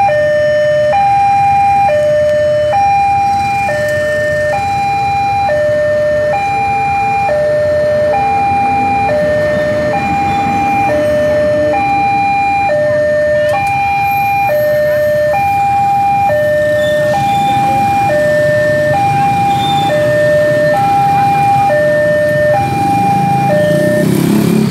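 Railway level-crossing warning sounder alternating between a high and a low tone, each held about a second, over the low rumble of a diesel locomotive passing through the crossing. The tones stop shortly before the end, as motorcycle engines pick up and traffic moves off.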